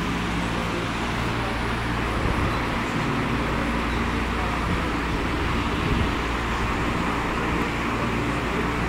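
Large barn ventilation fan running: a steady low hum under an even rushing of air.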